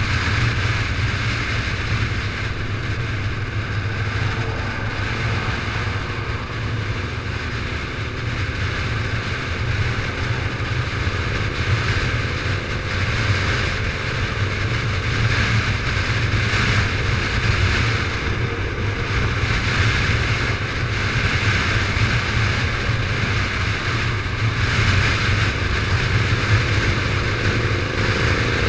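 Motorcycle cruising at steady speed on the open road: a low engine hum buried under a steady rush of wind on the bike-mounted microphone.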